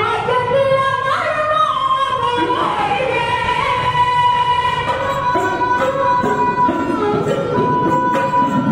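Dhadi singing by women's voices with bowed string accompaniment, the melody moving in steps, with a long note held steady through the second half.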